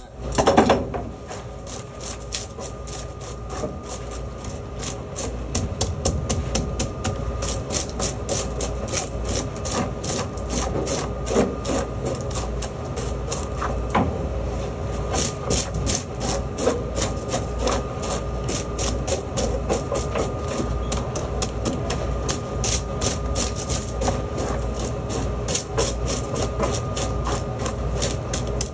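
A knife or scaler scraping the tough scales off a whole fish in quick repeated strokes, about three a second. There is a sharper, louder knock about half a second in.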